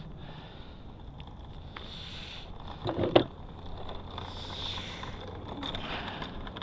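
Hand tools being rummaged for in a tool bag: rustling and soft scuffs, with one sharp knock of tools just after three seconds in.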